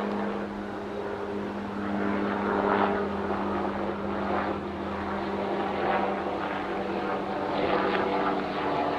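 A steady engine-like drone: a constant low hum with even overtones under a rushing noise, holding level throughout.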